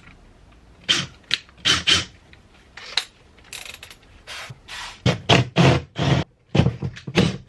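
Power drill boring 8 mm holes through a metal bar in a run of short, separate bursts of the trigger, coming closer together in the second half.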